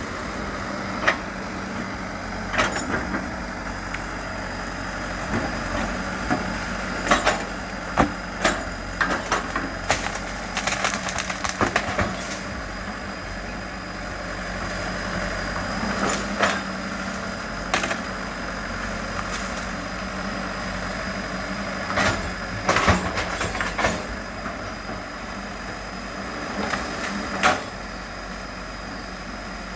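Excavator's diesel engine running steadily, with irregular sharp knocks and cracks coming in clusters.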